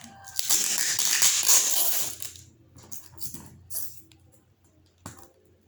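Shipping package being cut open with a knife: a rustling, scraping packaging noise for about two seconds, then softer crinkles and a few light clicks.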